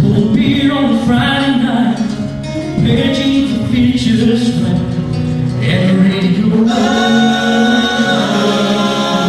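Live country music: sung, held vocal notes over guitar accompaniment.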